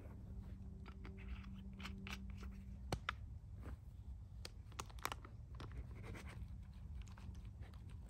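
Quiet crinkling, rustling and sharp clicks from a meal pouch being handled and opened, with scattered small crackles and knocks.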